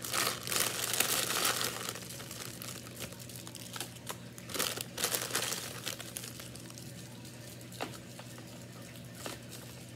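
Plastic candy packaging crinkling and rustling as it is handled and worked into a crowded basket: dense crinkling for the first two seconds, then scattered short crackles.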